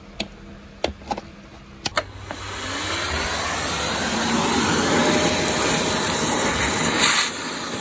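A few sharp clicks as a plug goes into a power board socket, then a vacuum cleaner starts about two seconds in, its motor whine rising as it spins up. It settles into a steady suction noise while it sucks up plastic drill shavings, with a brief louder surge near the end.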